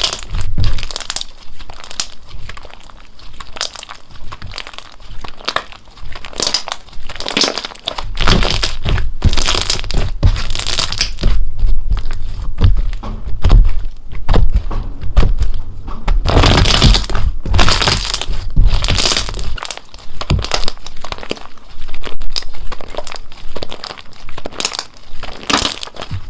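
Slime being squeezed and pressed by hand, giving irregular runs of sharp pops and clicks as air pockets burst, louder in some stretches than others.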